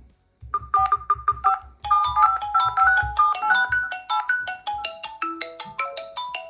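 Mobile phone ringtone: a short, near-silent gap, then a melody of chiming notes starts about half a second in. A busier run of higher, mallet-like notes joins a little before two seconds in.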